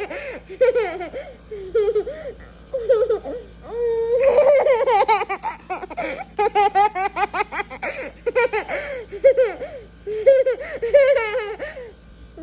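Young children laughing hard together, in rapid high-pitched bursts of giggles with a longer drawn-out laugh about four seconds in.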